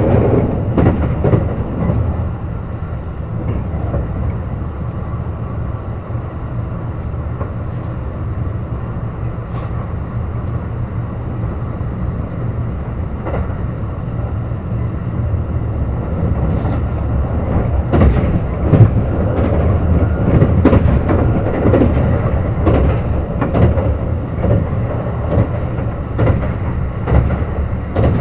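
Kintetsu 21000-series Urban Liner Plus limited express running along the line: a steady low rumble of wheels and motors with scattered clicks over the rails. It grows louder and busier in the second half.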